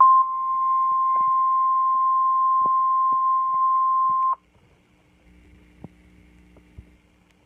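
Emergency alert attention tone: a single loud, steady electronic tone held for about four seconds, then cut off abruptly. A faint low hum with a few soft clicks follows.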